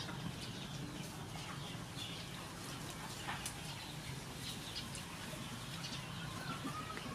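Birds chirping and calling in short, scattered notes over a steady low outdoor hum.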